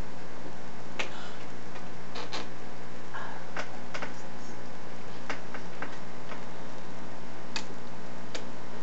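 A dozen or so sharp small plastic clicks at irregular intervals as a computer mouse and its cable are handled and clicked, over a steady low hum.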